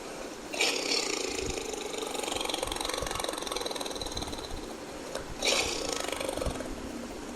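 Tiger roaring twice: a harsh call about half a second in that tails off over several seconds, then a shorter one about five and a half seconds in.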